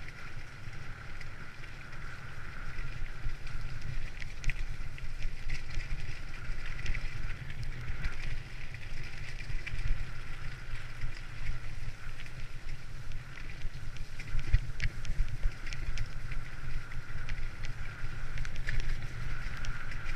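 Bicycle tyres crunching and rolling over a wet gravel trail at riding speed, with wind buffeting the microphone and scattered rattling clicks from the bike.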